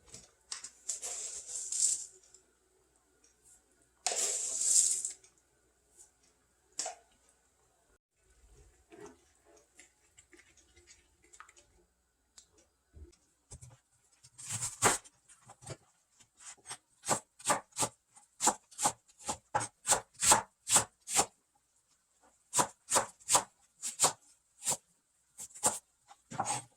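Knife chopping on a cutting board in a steady rhythm of about two strokes a second through the second half, after a couple of short rustling hisses near the start.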